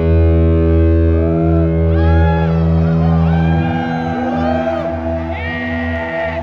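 A rock band's distorted electric guitar and bass holding a ringing chord on a loud amplified stage, with crowd members shouting and whooping over it. The deep bass note drops away about halfway through while the higher notes ring on.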